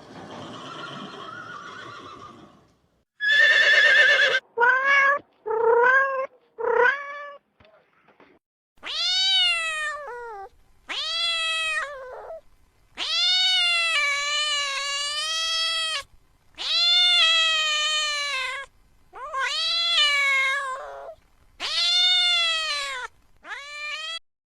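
A domestic cat meowing repeatedly: a few short meows, then a series of long, drawn-out wailing meows lasting one to three seconds each. A faint rustling noise comes before the first meow.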